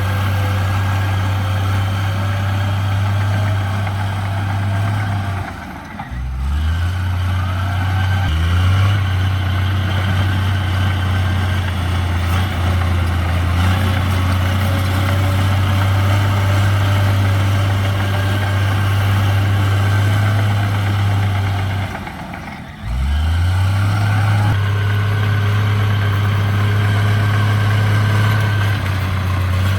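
Heavy diesel engine of earthmoving equipment running steadily under load. Twice, about six seconds in and again near the end of the third quarter, the sound drops away briefly, then the engine note climbs back up.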